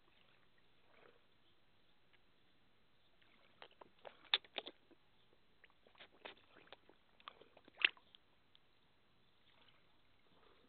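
Koi carp sucking and slurping at bread held at the water surface: a run of wet smacks and small splashes, coming in two bunches from about three and a half seconds in and again around six to eight seconds.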